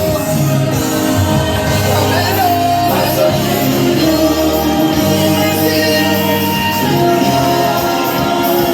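Loud party music with singing and a steady bass line, with some shouting over it.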